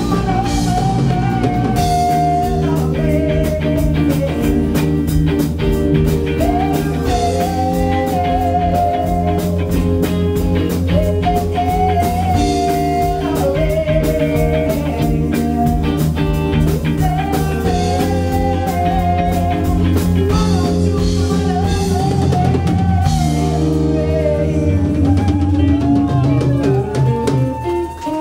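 Live rock band playing: two electric guitars and a drum kit, with a winding melody line over sustained chords and a steady drum beat.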